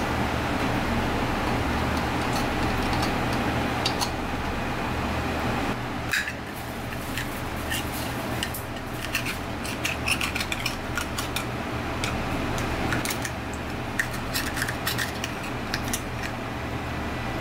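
A thin metal blade clicking and scraping against scallop shells as they are pried open, many small sharp clicks that come thickest in the second half, over a steady low hum.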